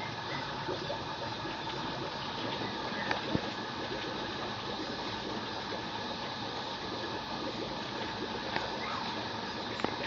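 Steady rushing background noise with a few faint clicks.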